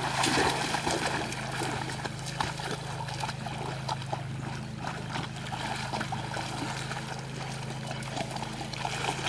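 Dogs swimming and splashing through pond water: irregular sloshing and small splashes, with a steady low hum underneath.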